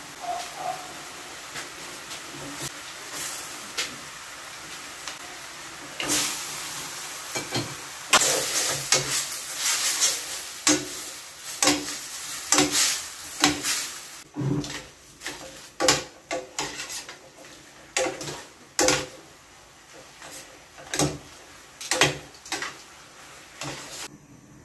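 Shrimp and sauce sizzling in a stainless steel frying pan. The hiss gets louder about six seconds in, and then tongs clack and scrape against the pan again and again as spaghetti is tossed in the sauce.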